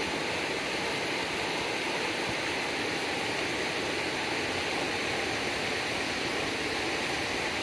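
Steady rushing of river water running through a rocky ravine.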